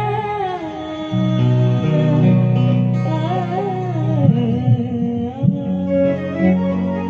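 Live band playing a qawwali song: a singer's wavering, ornamented vocal lines over held keyboard chords and acoustic guitar.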